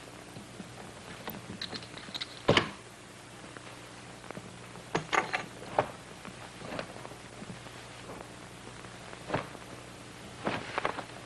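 Scattered thumps and clicks from an old film's soundtrack over a faint steady hum, with one loud thump about two and a half seconds in and small clusters of knocks around the middle and near the end.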